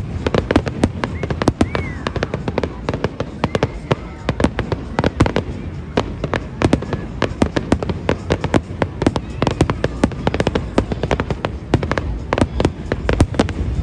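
Fireworks display in a dense barrage: many sharp bangs and crackles, several a second, over a low rumble.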